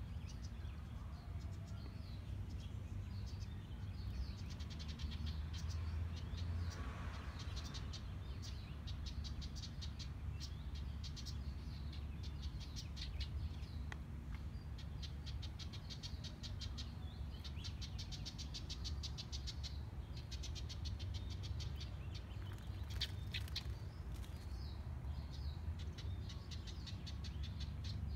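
House wren calling: repeated runs of rapid chattering notes, high-pitched, heard several times, over a steady low background rumble. This is the adult female calling from a perch away from the nest box to coax her chicks out to fledge.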